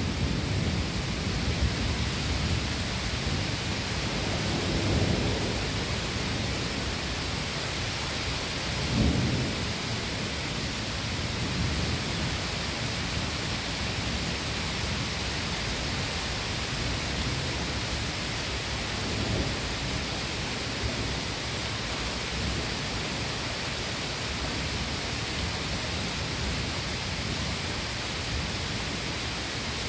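Steady rain during a passing thunderstorm, with thunder rumbling. A rumble dies away in the first second, and shorter rolls of thunder swell about five, nine and nineteen seconds in.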